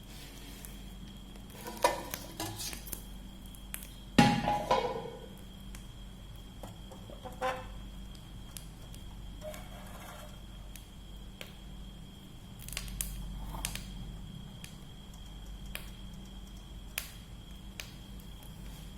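Kitchen pots, dishes and utensils being handled, a few separate clanks and rattles, the loudest a short clatter about four seconds in.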